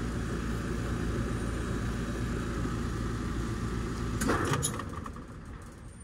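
Trane outdoor air-conditioning condensing unit running with a steady hum, then shutting off about four seconds in: a brief knock from the compressor as it stops, after which the hum dies away. This little shutdown bump is the noise the customer complained of; the technician calls it a little compressor noise and doesn't think it is anything to be concerned about.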